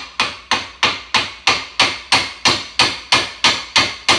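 Steady, rapid hammer blows, about three a second, on a nut threaded onto the end of a steel suspension bolt, driving the bolt out of the leaf spring bushing in a Club Car DS golf cart's front suspension. Each strike is a sharp, bright metallic clank, and the nut is there to keep the threads from being damaged.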